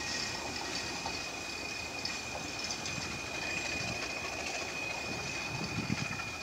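Freight train of ballast wagons running away down the track: a steady rumble of steel wheels on the rails as the rear of the train recedes.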